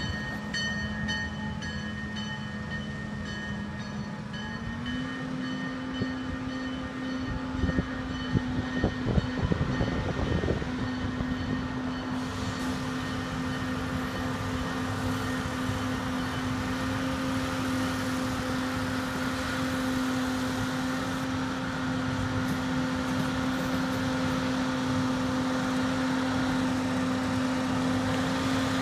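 Diesel engine of a rail maintenance-of-way track machine running steadily. Its pitch steps up about five seconds in as it gets under way, and a flurry of metal clanks follows a few seconds later as it rolls over the track. Its sound grows louder as it comes close.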